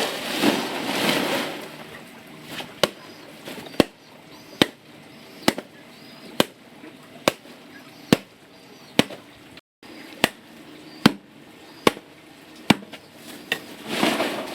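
Steady chopping: sharp single strikes, a little under one a second, with a louder rustling noise at the start and again near the end.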